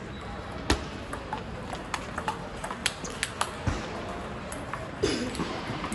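Table tennis rally: a plastic ball clicking quickly off the bats and the table, about three to four contacts a second, for roughly three seconds. About five seconds in comes a short, louder vocal sound, a player's cry as the point ends.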